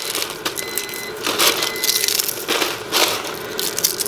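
Dried eggshells being crunched up by hand on a food dehydrator tray: a dense crackling crunch that comes in repeated surges as handfuls are squeezed. The shells crunch because they are dry.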